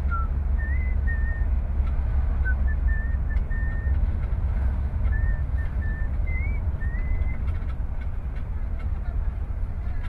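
Steady low rumble of a car driving, heard from inside the cabin, with a person whistling a slow tune over it in short held and sliding notes that stop a bit past halfway.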